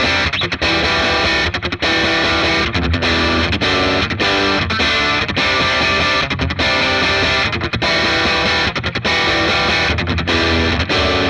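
Distorted electric guitar riff in a stop-start rhythm, with short gaps where the playing cuts off.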